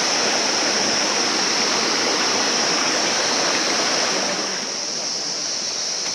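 Small waterfall splashing down into a rocky stream, a steady rush of water that eases a little about four seconds in. A high insect buzz carries on throughout.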